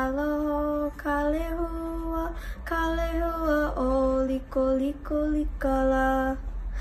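A girl's solo voice chanting a Hawaiian oli, a string of long held notes on nearly one pitch with short breaks between them.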